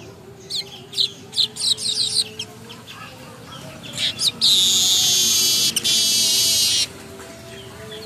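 Caged male manyar (weaver bird) practising its song: a string of short, quick, falling chirps, then a loud, harsh buzzing wheeze lasting about two and a half seconds that cuts off abruptly. This is a young bird still learning its song.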